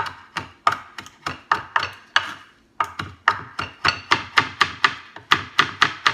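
Chef's knife chopping fresh flat-leaf parsley on a wooden cutting board: quick, even knocks of the blade on the board, about four a second, with a short break about halfway through.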